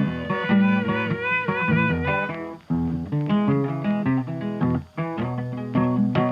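Instrumental background music led by plucked guitar, with a wavering melody line on top, briefly dropping out twice.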